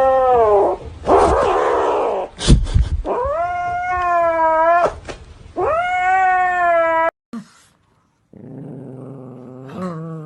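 Angry cat caterwauling: three long, drawn-out yowls, each bending in pitch, with a noisy rasp after the first. After a short break a quieter, lower, steady growling call follows.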